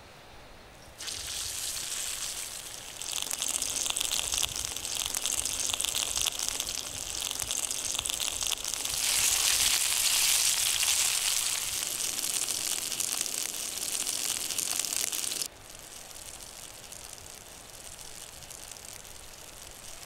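Slices of raw meat sizzling in hot oil in a small frying pan over a wood fire, as pieces are laid in with tongs. The sizzle starts about a second in, gets louder in steps about three and nine seconds in, and cuts off suddenly about fifteen seconds in, leaving a faint steady hiss.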